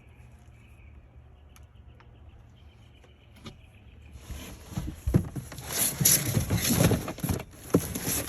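Packaging being handled: a few faint clicks, then from about four seconds in loud rustling and crinkling with repeated knocks, as a part is pulled out of its cardboard box.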